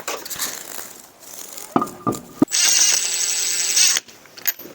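A battery power tool spinning in the wheel bolts as the front wheel is refitted: a short blip of the motor about two seconds in, then it runs steadily for about a second and a half.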